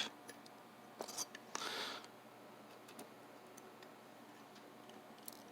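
Faint small clicks and a short scrape from a lock core being handled with its key and pins, as a trial pin depth is checked against the control key.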